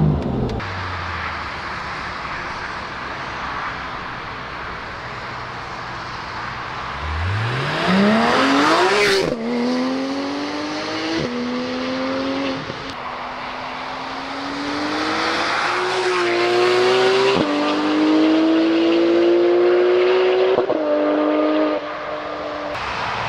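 Porsche 991 GT3 RS's naturally aspirated 4.0-litre flat-six, heard from a distance, accelerating hard through several gears: the pitch climbs steeply, then drops sharply at each shift and climbs again. Before that, the engine note falls away at the start and gives way to a few seconds of steady rushing noise.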